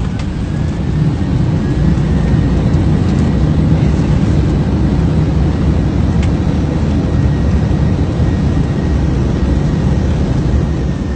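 Airliner landing rollout heard from the cockpit: a loud, steady rumble of the engines and the wheels on the runway just after touchdown, with a faint high whine above it. The noise builds over the first couple of seconds and eases near the end as the aircraft slows.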